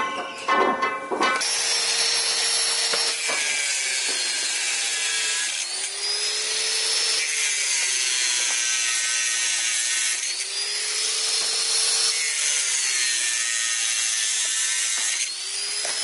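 Angle grinder with a cutting disc cutting through the bars of welded steel wire mesh. The motor runs steadily, and its pitch dips and recovers several times as the disc bites into the steel and comes free.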